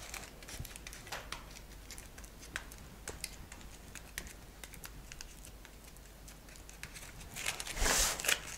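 Scrunched aluminium foil dabbed and pressed against soft sugarpaste icing to texture it: faint, scattered light taps and crinkles, with a louder crinkling rustle near the end.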